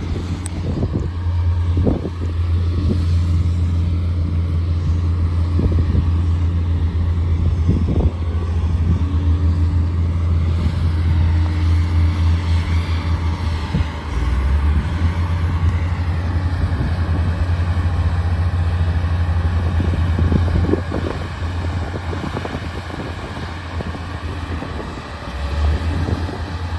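Diesel engine of a heavy construction machine running steadily, with a few sharp clanks, and quieter for the last few seconds.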